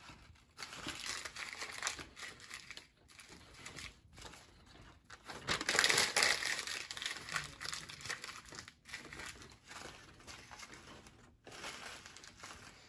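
Newspaper being crumpled by hand into balls: irregular bursts of crinkling paper, loudest about six seconds in.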